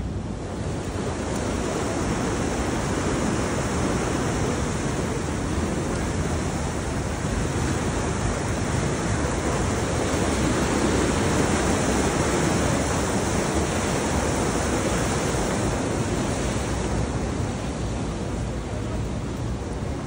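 Steady rush of the fast-flowing Pita River's water, swelling a little around the middle, with wind buffeting the microphone.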